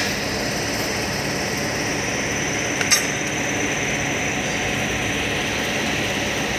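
Hand tools working on a truck engine's crankshaft damper pulley, with one sharp metallic clink about three seconds in, over a steady mechanical hum.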